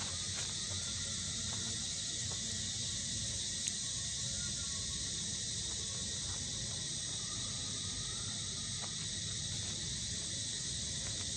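A steady, high-pitched chorus of forest insects droning without a break, with one sharp click about four seconds in.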